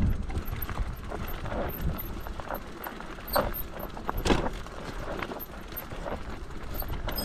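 Mountain bike ridden over rough, rocky ground: irregular rattles, clicks and knocks from the bike, the loudest about three and four seconds in, over a low rumble.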